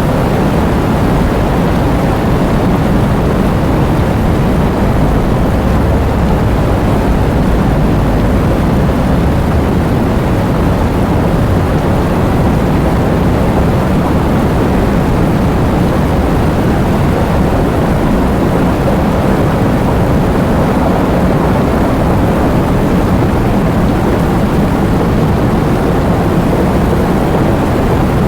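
Heavy rain pouring, a dense steady downpour with a deep rumble and little hiss.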